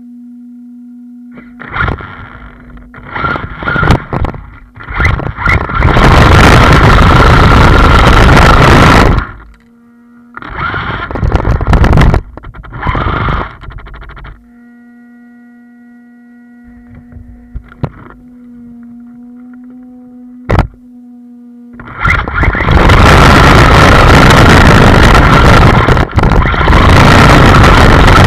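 Arrma Talion RC car driving in short hard runs, each a loud, distorted burst of motor, tyre and wind noise. A steady hum sits in the pauses, with one sharp click, and the last several seconds are one long continuous run.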